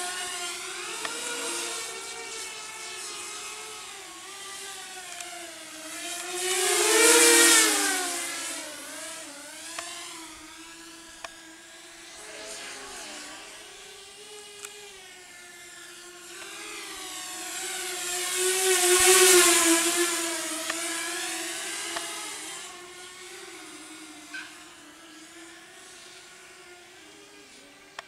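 Walkera Rodeo FPV racing quadcopter's motors and propellers whining, the pitch wavering up and down with the throttle. It passes close twice, loudest about seven seconds in and again around nineteen seconds, then fades into the distance near the end.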